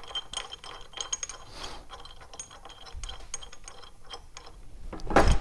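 Ratchet wrench clicking in short runs as the bolts holding the body onto a Sensus Model 243 gas regulator are tightened down, then a louder knock near the end.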